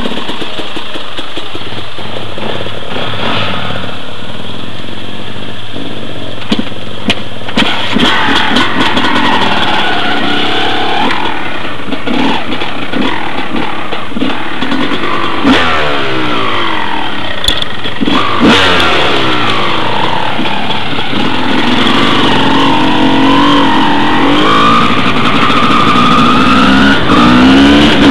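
Enduro dirt bike engine accelerating away and riding on, its pitch rising and falling again and again as it revs up and changes speed.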